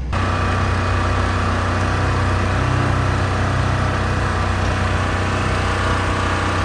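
Large diesel engine idling steadily, an even low hum with no revving.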